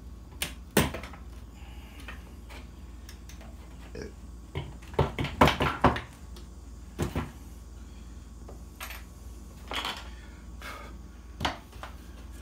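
A thin screwdriver prying a metal sawtooth picture hanger off the back of a wooden picture frame: scattered sharp clicks and scrapes of metal on metal and wood, with a quick cluster of clicks about halfway through.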